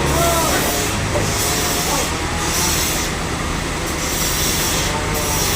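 Sawmill saw cutting through a large log: steady loud machine noise with a low hum and faint high squeals from the blade.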